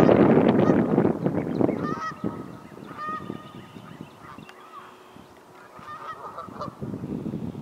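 Canada geese honking: a cluster of calls about two seconds in and a few more near the end. Over the first couple of seconds, loud wind buffets the microphone.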